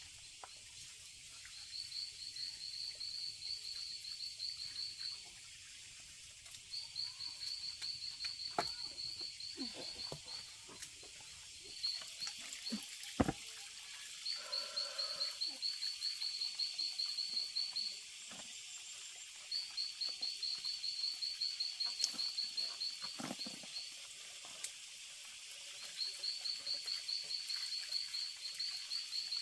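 A frog calling in repeated bouts of rapid pulsed notes, each bout two to four seconds long with short pauses between, over a steady high hiss. A single sharp knock sounds about 13 seconds in.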